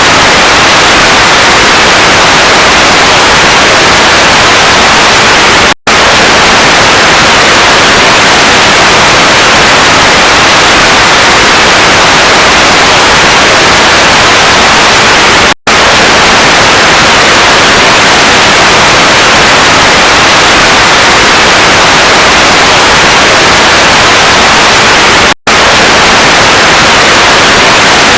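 Loud, continuous static hiss, like an untuned TV or radio, cut by three split-second dropouts roughly ten seconds apart.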